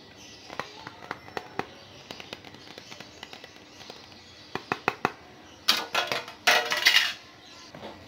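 Thin plastic ceiling-fan blades handled by hand: a run of light clicks and taps, then, late on, a loud stretch of rustling plastic packaging lasting about a second and a half.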